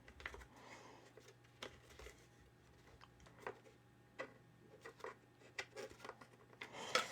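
Faint, irregular small clicks and ticks of a small screwdriver driving a tiny screw into the bracket of a die-cast model car's pedal assembly, with metal parts knocking lightly.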